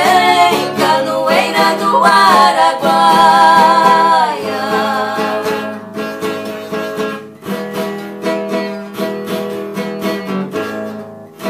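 Two women singing together in sertanejo style over a strummed acoustic guitar, holding the last sung notes for about the first four seconds. Then the guitar strums on alone as the song closes.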